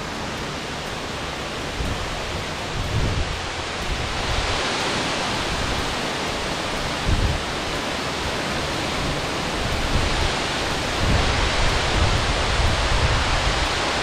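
Waterfall rushing: a steady hiss and roar of falling water that grows louder about four seconds in, with a short thump about seven seconds in.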